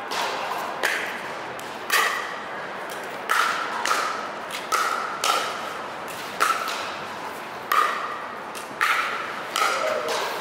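Pickleball paddles striking a hard plastic pickleball in a fast rally: about a dozen sharp pops, roughly a second apart, each ringing briefly.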